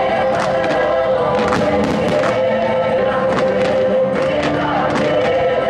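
Fireworks show soundtrack with a choir singing over held chords, under frequent firework bursts popping and cracking about twice a second.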